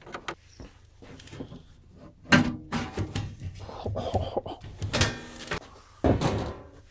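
Metal parts of a vintage video editor being handled and pulled apart by hand: a couple of sharp clicks, then scraping and clattering clunks, the loudest about two seconds in and again near the end.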